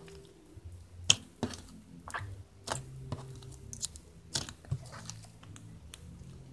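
Floam slime, glue slime packed with foam beads, being squeezed and kneaded by hand: irregular crunchy crackles and squishes, with one sharp snap about a second in.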